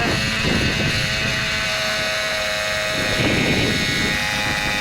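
A small electric motor running with a steady high whine. Its pitch drops for about half a second at the start, then holds level.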